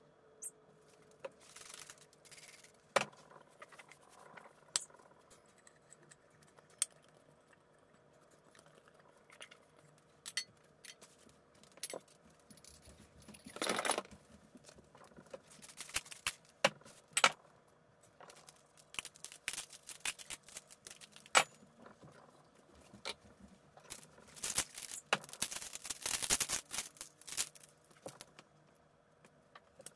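Glassware clinking and knocking as glass lamp chimneys and jars are handled, wiped with a cloth and set down, with short scrapes of cloth on glass. Near the end, a longer rattle, like marbles shifting inside a glass jar as it is picked up.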